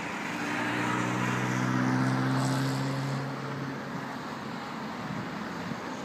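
Engine of a classic sports car driving past with a steady note. It grows louder to a peak about two seconds in, then fades, over a rushing haze of road noise.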